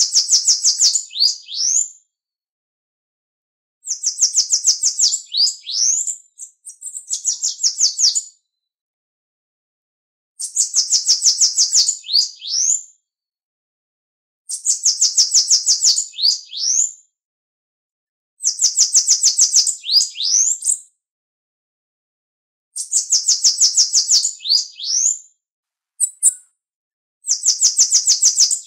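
Bananaquit (Coereba flaveola) singing its song over and over, about every four seconds with silence between. Each song is a fast, high, buzzy trill ending in a few quick slurred notes.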